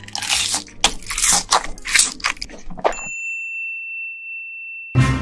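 Cartoon eating sound effects: a quick run of crunchy bites and munches, then a single clear high ding held for about two seconds. A loud low thud comes near the end.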